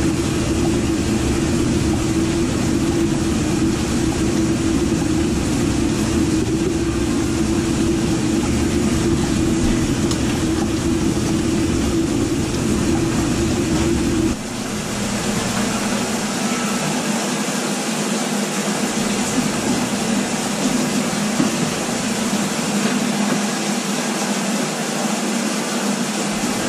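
RIDGID K9-306 FlexShaft drain machine running, its motor spinning the cable and chain knocker inside a grease-clogged 3-inch drain line, a loud steady hum with rumble. About halfway through the sound changes abruptly: the low rumble drops away, the hum sits lower, and a hiss comes up.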